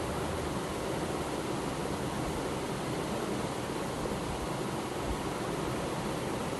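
Vegetables and soya chunks sizzling steadily in oil in a steel kadai as they are stir-fried.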